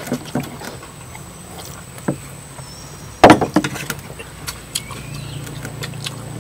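Scattered light clicks and knocks, with one sharp, loud knock a little after halfway through.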